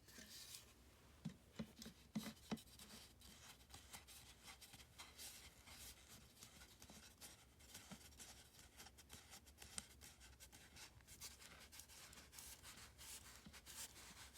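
Faint rubbing and small clicks of plastic tubes and shelf boards being handled, with a few sharper knocks in the first couple of seconds.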